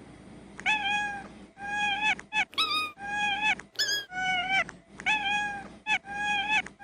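A cat meowing in a steady run of about ten short, evenly spaced calls, two of them higher-pitched.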